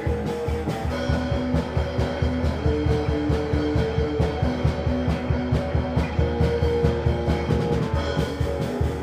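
Crust punk band recording: guitars holding sustained notes and chords over a fast, driving drum beat, with no vocals.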